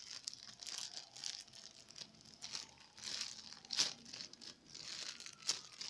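Clear plastic bag around a squishy toy crinkling as it is handled, an irregular run of crackles with a few sharper, louder crinkles.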